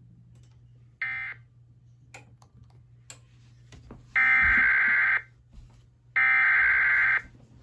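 Emergency Alert System SAME data bursts: a brief burst about a second in, then two one-second bursts of buzzy digital data tones a second apart. This is the digital header that opens the relayed flash flood warning.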